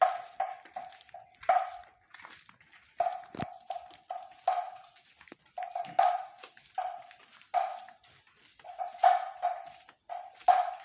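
An animal calling in short, same-pitched yelps that come in quick runs of three to five, again and again.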